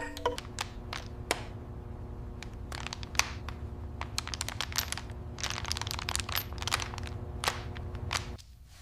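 Irregular crackling and crinkling clicks, denser in a few stretches, over a steady low hum; it all cuts off about eight seconds in.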